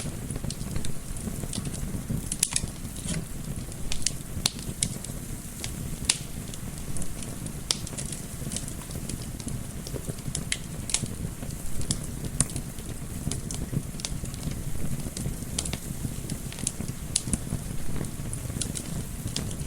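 Wood fire crackling with irregular sharp pops, several a second, over a low steady rumble of gentle wind.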